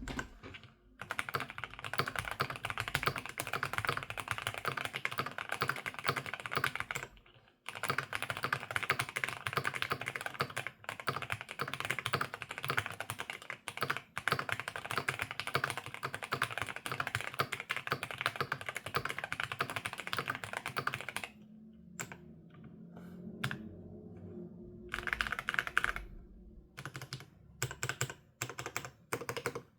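Keychron V1 Max mechanical keyboard with factory-lubed Gateron Jupiter Red linear switches, dampened with tape (tempest) and PE foam mods, typed on in fast continuous runs. There is a brief pause about seven seconds in, and after about twenty seconds the typing turns to slower, scattered keystrokes and short flurries.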